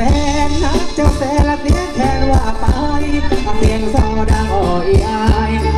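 Live Thai ramwong dance band playing loud through the stage loudspeakers, with a steady drum beat of a bit over two strokes a second under a wavering melody line.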